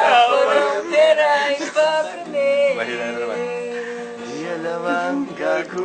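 Music with a singing voice, long drawn-out notes that slide up and down in pitch.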